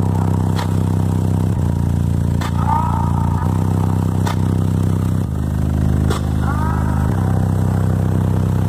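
Subwoofers playing loud, sustained low bass notes that step to a new pitch about every two seconds, with a few sharp clicks in between.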